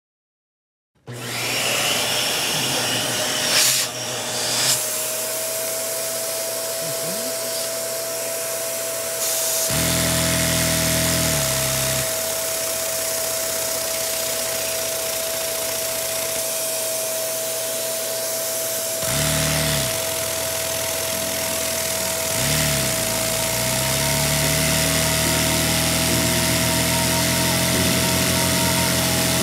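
Vacuum cleaner switched on about a second in and running steadily with a whine and rushing air. Its hose is drawing air through a small Lego vacuum engine to run it.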